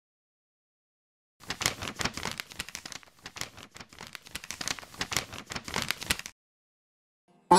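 A sheet of paper crinkling and rustling as a folded letter is opened and handled. It starts over a second in and stops about a second before the end.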